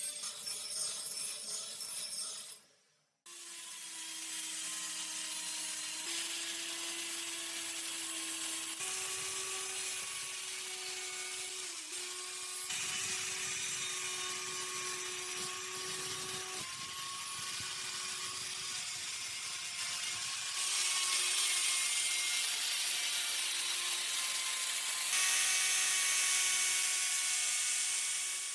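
Power tools at work on a metal wrench: a steady motor tone under an abrasive hiss, in short clips that change abruptly every few seconds. The sound drops out briefly about three seconds in.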